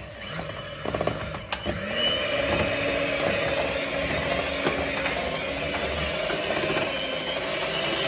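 A small electric kitchen motor, an electric hand mixer, switches on after a couple of clicks. It winds up in pitch about two seconds in, then runs steadily.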